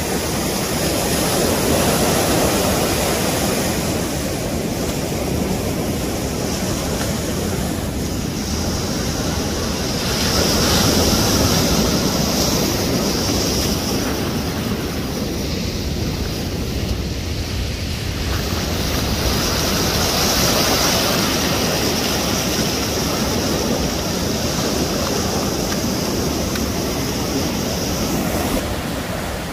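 Rough storm waves breaking on the shore: a continuous rushing surf that swells louder three times, near the start, about a third of the way in and about two-thirds through.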